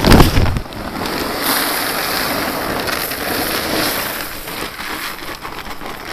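Small pebbles pouring from a bag into a plastic bucket: a steady, dense rattling rush of many small stones, after a loud thump at the very start.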